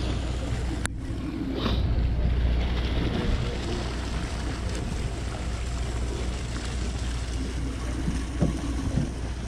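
Water sloshing along a boat's hull, with wind buffeting the microphone over a steady low rumble. A single sharp click about a second in.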